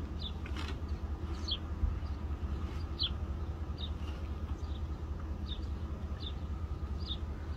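A small bird repeats short, high chirps roughly once a second over a steady low rumble.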